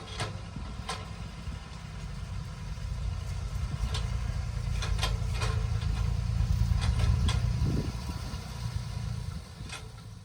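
Excavator's diesel engine running with a heavy low rumble that swells to its loudest past the middle and then eases off. Sharp knocks and clanks are scattered over it.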